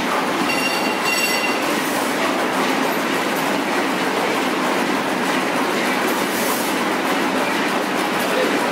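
Steady mechanical clatter and hiss of machinery running in an engine shed while a large stationary engine's flywheel is rolled over by hand to start it. A short high squeal about a second in.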